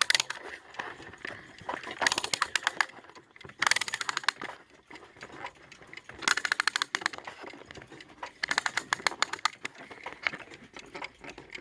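A Bradley Star Wars wind-up alarm clock being wound by its key: bursts of rapid ratchet clicking, about six of them, with short pauses between turns.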